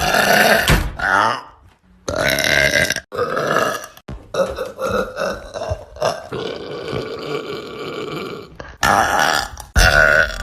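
A woman burping loudly, several burps in a row with short pauses between them, and one long drawn-out burp of over two seconds past the middle.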